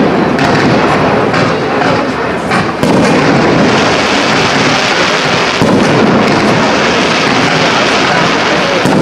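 Stockmanns professional fireworks display: a dense, unbroken barrage of launches and bursts, with sharp cracks in the first few seconds and a step up in loudness about three seconds in.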